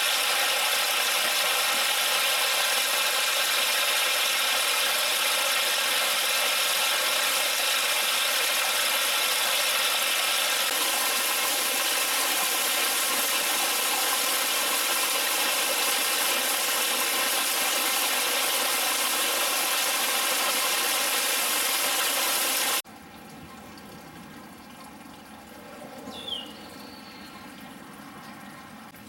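Heavy hail falling on a covered porch roof, deck and yard, heard from under the porch: a loud, dense, steady din of hailstones striking. About 23 seconds in it cuts off suddenly to a much quieter patter of rain and dripping, with one short chirp near the end.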